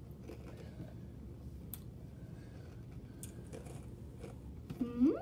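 A few faint, scattered clicks over a low steady room hum, then near the end a girl's voice gives a short squeal that rises sharply in pitch.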